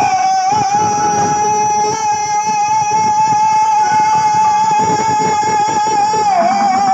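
Live Rajasthani devotional folk music: one long sustained melody note, wavering slightly at the start and bending down about six seconds in, over dholak drumming and keyboard.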